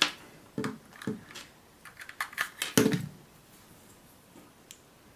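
Light clicks and knocks of small leads, clips and a tiny charging board being handled, several over about three seconds, as the charger leads are connected to a lithium-ion phone battery.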